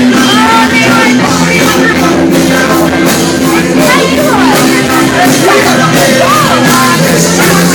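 Loud rock music with singing, and voices shouting over it.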